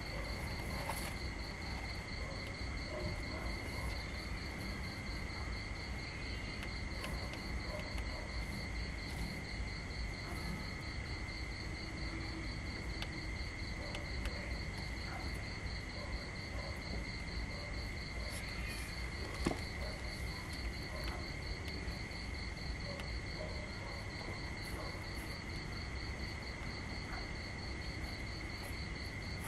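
Insects trilling steadily: one even high tone and a second, higher one pulsing rapidly, over a low, even background rumble. One brief click about two-thirds of the way through.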